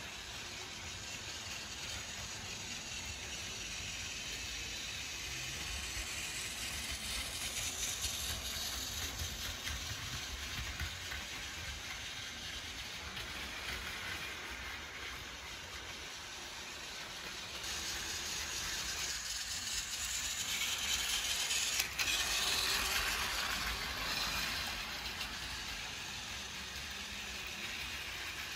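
Battery-powered Plarail toy Shinkansen running on plastic track, its motor whirring and its wheels running along the rails. The sound swells as the train comes closer, about 8 seconds in and again from about 20 to 24 seconds in, with a single sharp click near 22 seconds.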